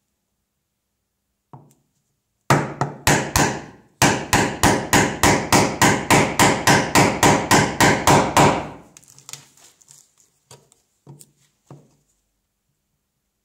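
Mallet driving a bench chisel to chop a mortice in white oak: a few blows, a short pause, then a steady run of blows about three a second for several seconds, each with a short ring. A few quiet knocks follow near the end.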